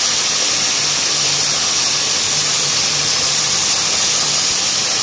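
Yarn bobbin winding machine running: a loud, steady whirr and hiss of spinning spindles with a faint low hum underneath.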